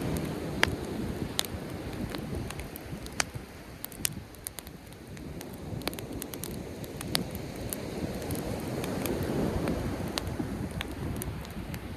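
Driftwood campfire crackling, with irregular sharp pops and snaps. Behind it, surf rushes in a low swell that rises and falls, building again about two-thirds of the way through.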